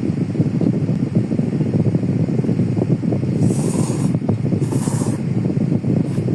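Steady low rumbling noise with two short hissing bursts a little past the middle.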